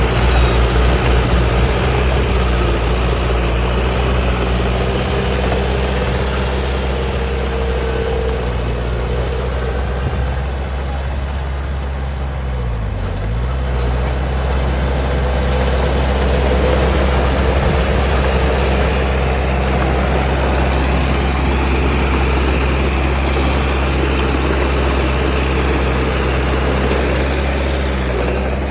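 Komatsu D31P bulldozer's diesel engine running steadily, its pitch dipping for about a second near the middle and coming back up.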